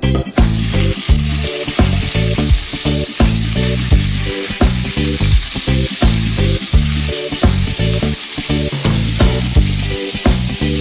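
Whole seasoned to'au (blacktail snapper) frying in hot oil in a pan: a steady sizzle that starts a moment in, as the fish goes into the oil. Background music with a steady beat plays underneath.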